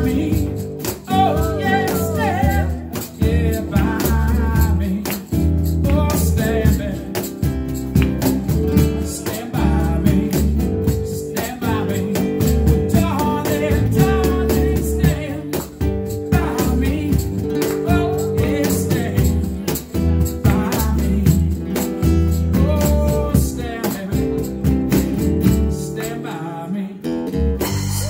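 Live acoustic jam: an acoustic guitar strummed with a voice singing over it and light hand percussion, with no clear words. The music softens briefly near the end.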